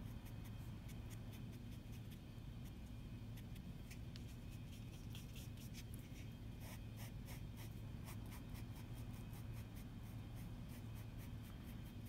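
Foam brush dabbing and stroking black paint onto a foam collagraph plate and picking up paint from a paper plate: a run of short, scratchy brush strokes, coming thicker in the second half, over a steady low hum.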